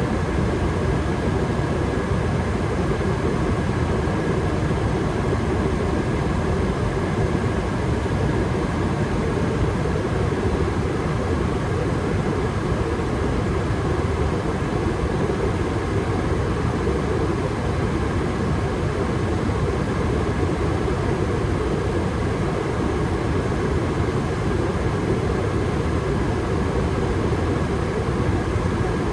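Furnace running at steady state with its burners firing: a steady rushing hum with a faint high whine over it.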